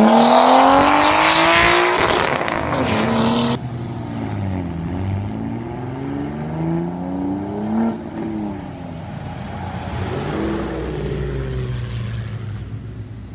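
Nissan Skyline R32 sedan accelerating hard away, its engine note climbing in pitch, dropping at each upshift and climbing again. It is loud for the first three and a half seconds, then fades as the car pulls into the distance.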